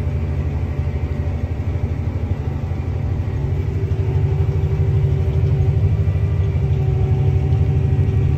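John Deere tractor engine running steadily while pulling a planter, a low pulsing drone heard from inside the cab. It grows slightly louder about halfway through.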